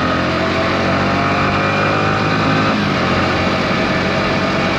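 Motorcycle engine running steadily on the move, mixed with wind and road noise, as picked up by a GoPro Media Mod's rear mic with wind reduction on. The engine note shifts a little about three seconds in.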